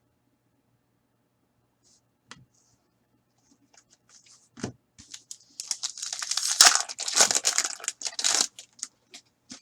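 A Fleer Ultra hockey card pack's wrapper being torn open and crinkled, loudest for about three seconds in the second half, after a click and a knock as the pack is handled.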